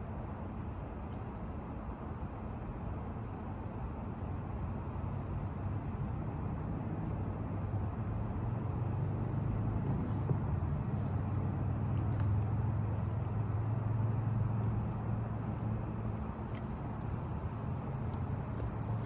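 Low engine hum of a motor vehicle, growing louder over several seconds, loudest about two-thirds of the way in, then easing off.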